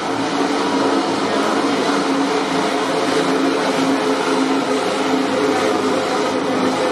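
MotoGP racing motorcycle engine running at steady revs, a constant loud drone with a slight waver and no revving up or down.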